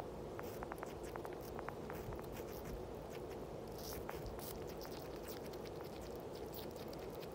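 Two sugar gliders chewing and licking apple: a quick, irregular run of small wet clicks and smacks over steady background noise.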